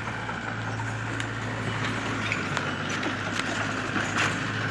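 Engine running steadily at constant speed, a low even hum, with a few sharp clicks over it.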